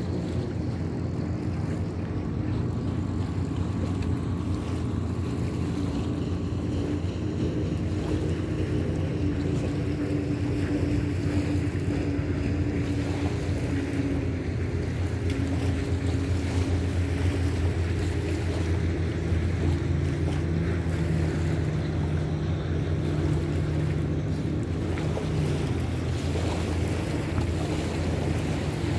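Steady drone of a motorboat engine out on the water, its pitch drifting slowly, over wind rumbling on the microphone.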